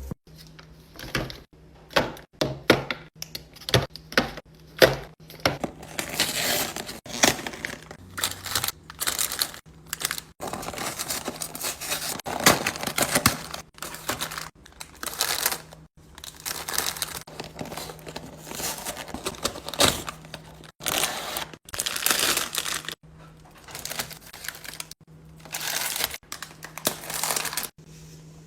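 Packaging crinkling, rustling and tearing as groceries are unpacked, with a run of sharp clicks and knocks in the first few seconds. The sounds come in short bursts with abrupt cuts, over a faint low steady hum.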